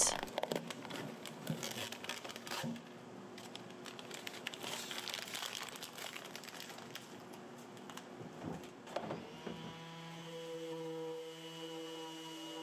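Brittle old paper drawer liner being peeled up and crumpled by hand, a crisp crackling and crinkling with small tearing sounds. Near the end a steady hum comes in.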